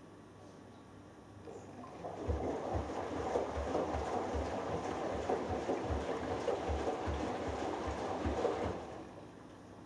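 Hoover Dynamic Next front-loading washing machine on its delicates wash: the drum turns for about seven seconds, water and laundry sloshing inside with soft low thumps about twice a second, then stops. This is the gentle tumble-and-pause action of the delicates cycle.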